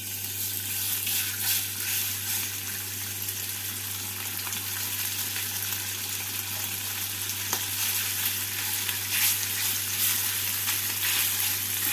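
Marinated boneless chicken strips shallow-frying in a little hot oil in a frying pan: a steady, dense sizzle that starts suddenly as the chicken goes into the oil.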